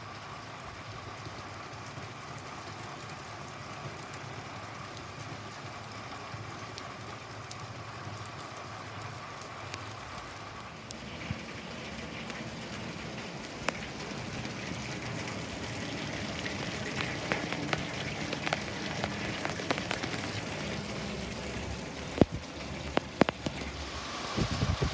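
Heavy monsoon rain falling as a steady hiss. About eleven seconds in it grows louder and sharper, with single drops and splashes striking close by, and more of them near the end.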